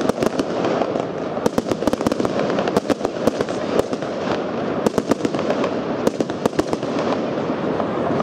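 Dynasty Silver Salute fireworks cake firing: rapid sharp bangs and crackling in dense clusters, thinning out after about seven seconds as the cake finishes.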